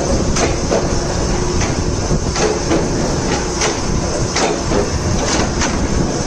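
Slotting machine cutting a keyway: the ram strokes up and down with a sharp knock on each stroke, roughly one to two a second, over the steady running noise and hum of the machine.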